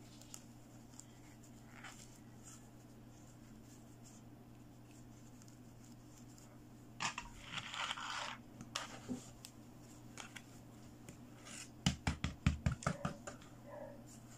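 A plastic fashion doll and her fabric clothes being handled on a wooden tabletop. There is a brief scratchy rustle about halfway through, then a quick run of about eight light knocks of the doll against the table, all over a faint steady low hum.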